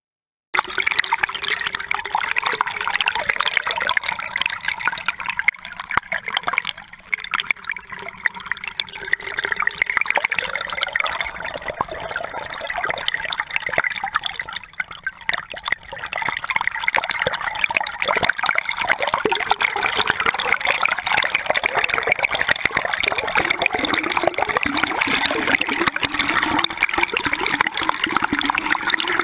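Flowing river water picked up by a camera held underwater: a muffled rushing and gurgling, with many small clicks and knocks as the fishing magnet and camera drag over the stony riverbed.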